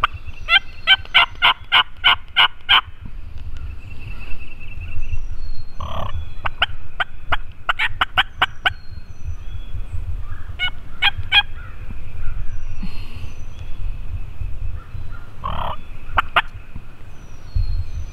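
Wild turkeys calling: runs of quick, sharp notes at about four a second, the longest near the start and another around the middle, with shorter runs later on.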